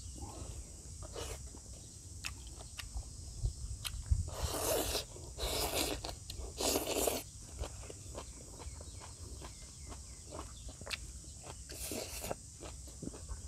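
Close-up eating sounds from a man eating rice and stir-fried beef with his fingers: small clicks and several short crunchy, rustling bursts of chewing and food handling.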